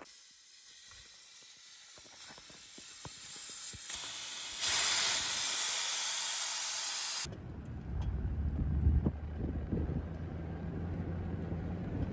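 A steady hiss grows louder over several seconds and stops abruptly about seven seconds in. Then a truck's V8 engine runs low and steady, rising briefly a few times.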